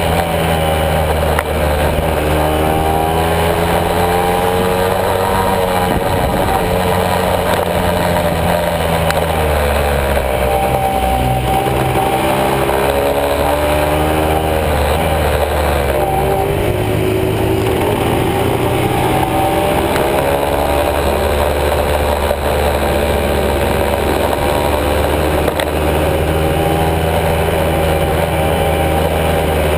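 Honda MB100's single-cylinder two-stroke engine running under way, heard from on the bike, its pitch rising and falling repeatedly as the rider speeds up, shifts and eases off.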